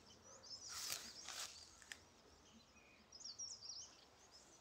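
Faint outdoor birdsong: small birds chirping and twittering in two short spells, early and again past the middle. A few brief rustles come about a second in.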